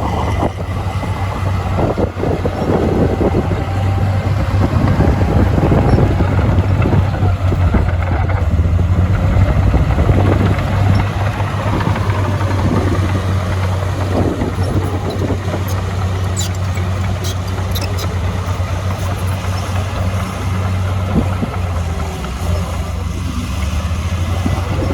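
Heavy earthmoving machinery's diesel engine running steadily under work, a deep continuous drone with rough mechanical rattle. A few sharp metallic ticks come a little past the middle.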